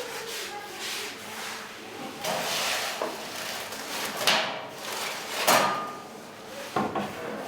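Irregular knocks, thuds and rustling of things being handled, with sharper knocks about four, five and a half and seven seconds in.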